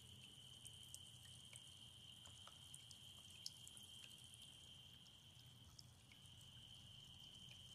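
Faint pattering and dripping of a small solar fountain's water jet falling back into its basin. A steady high-pitched tone runs underneath, with a short break about six seconds in.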